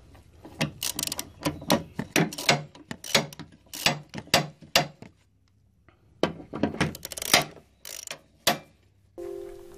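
Socket ratchet clicking in quick runs as a bolt on the steel lawn-finisher deck is tightened, with a pause of about a second halfway. Music comes in near the end.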